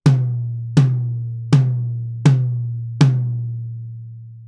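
High tom struck five times, about three-quarters of a second apart, each hit ringing on with a steady low tone that fades slowly after the last stroke. The tom's close mic sits on a separate stand, not clamped to its rim.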